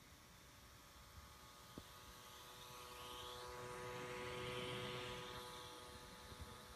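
Surface Pro 3 i5 cooling fan running with a buzzing hum rather than a plain whoosh, swelling louder around the middle and easing off near the end. The owner takes the buzz for a fan defect.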